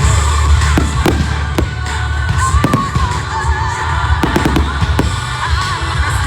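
Music played loud over a sound system, heavy in bass, with a fireworks display bursting over it in sharp bangs every second or so.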